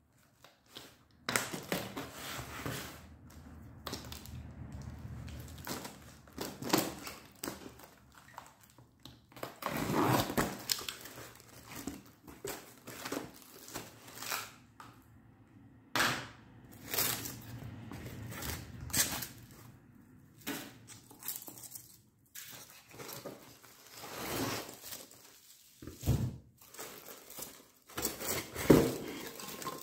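A taped cardboard shipping box being opened and unpacked by hand: irregular crinkling and tearing of packing tape and plastic film, scraping cardboard flaps, and polystyrene foam blocks rubbing and knocking as they are shifted and lifted out.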